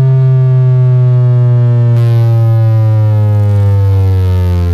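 Car sound system playing a very loud, low bass tone with a buzzy edge that slides slowly and steadily down in pitch, the kind of bass sweep played in sound-pressure contests.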